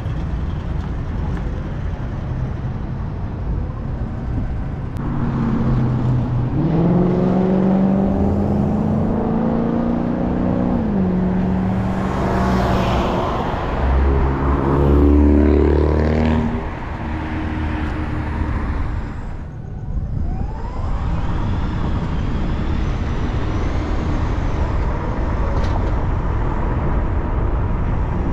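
A car being driven on city streets: steady road and tyre noise, with the engine note rising and falling several times in the middle as the car speeds up and slows, and a short quieter dip near the twenty-second mark.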